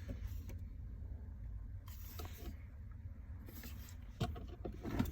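Faint handling noises of a plastic shifter handle being worked onto a car's automatic shift lever, with a few light clicks near the end, over a low steady hum.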